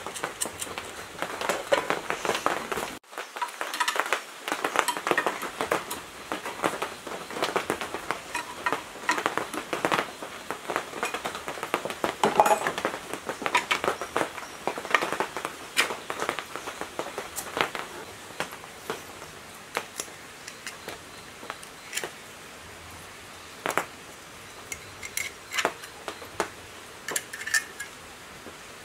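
Hand work on an electric motor: a scatter of small clicks, clinks and scrapes from metal parts and tools being handled. It is busy for most of the time and thins out to a few separate clicks near the end.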